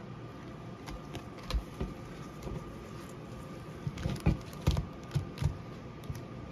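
Chrome trading cards being handled and flipped through: scattered light clicks and taps, with a quick run of them about two-thirds of the way in.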